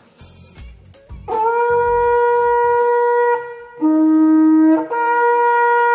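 Kudu antelope horn blown as a natural trumpet: a long steady note, then a short lower, slightly louder note about four seconds in, then the first note again.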